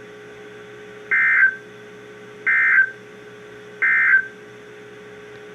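NOAA Weather Radio EAS end-of-message data bursts: three short, shrill digital warbles about 1.4 seconds apart over steady radio background hiss, signalling the end of the alert.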